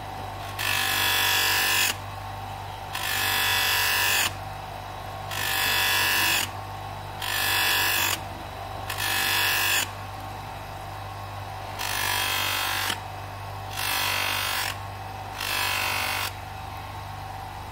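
Small bench grinder running with a buffing wheel loaded with brown polishing compound, its motor humming steadily. A knife blade is drawn across the spinning buff about eight times, each stroke a hiss about a second long, as the freshly ground edge is polished.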